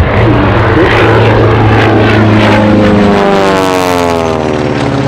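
Gee Bee R-2 racing plane replica's Pratt & Whitney Wasp radial engine and propeller running loud and steady in aerobatic flight. From about three seconds in, its note sweeps downward in pitch.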